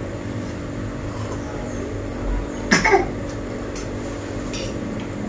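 A person's short vocal sound, falling in pitch, about three seconds in, over a steady low hum. A few faint clicks of spoons on dishes follow.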